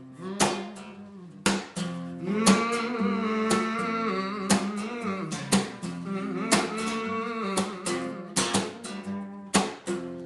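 Acoustic guitar strumming a slow gospel-style intro: sharp strokes between held, ringing chords.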